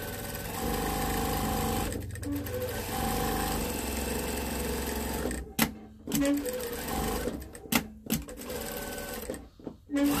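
Industrial sewing machine stitching a seam in spurts: a long run of needle clatter and motor hum, a stop about halfway through, then shorter runs and a pause near the end as the fabric is turned around a curve.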